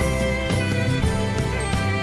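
Instrumental background music with held chords over a bass line.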